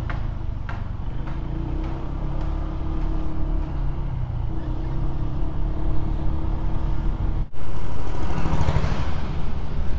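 Honda PCX 160 scooter's single-cylinder engine running at low speed, heard from the rider's seat together with road and wind noise. The sound breaks off for an instant about three-quarters of the way through and comes back louder.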